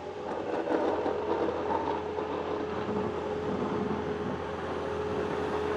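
Diesel engine of a snow-plowing machine running under load, with a steady whine held at one pitch over it.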